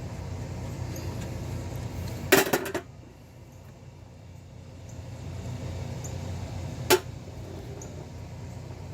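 Metal tools and brake parts being handled: a short rattling clatter of metal on metal about two seconds in and a single sharp clink near the end, over a steady low background hum.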